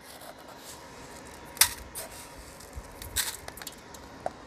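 A few short clinks and scrapes of a small cup and an aluminium pot being handled while salt is put in with the fish for washing. The two sharpest come about a second and a half in and just past three seconds.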